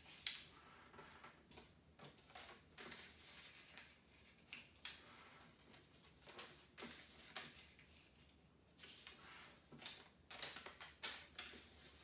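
Faint crackling and rustling of small squares of origami folding paper being folded and creased by hand, in short irregular crackles.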